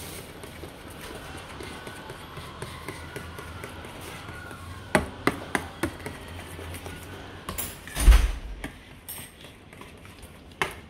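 Metal spoon stirring thick cooked corn pap in a stainless-steel bowl. The spoon clicks against the bowl several times about five to six seconds in, and there is a heavy thump about eight seconds in.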